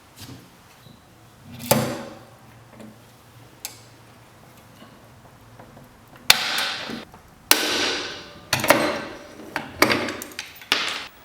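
A series of sharp clacks from hard objects being handled, each followed by a short sliding or scraping rush. There are about six of them, coming closer together and louder over the last five seconds.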